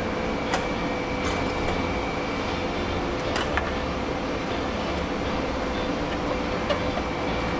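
Steady machine hum and noise with a constant whine, broken by a few light clicks and knocks of parts being handled during teardown of electronic equipment.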